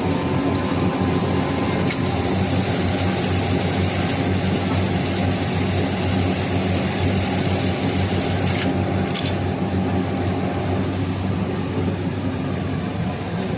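HighTex MLK500-2516ECO automatic pattern sewing machine running steadily, a continuous mechanical hum and clatter, with a couple of short sharp sounds about nine seconds in.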